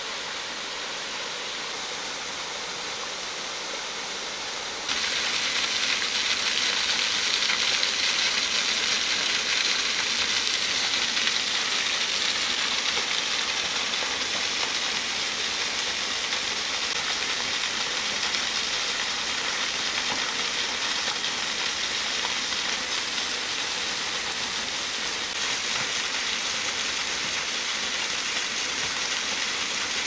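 Steady rush of water from a partly frozen waterfall, an even hiss that jumps louder and brighter about five seconds in.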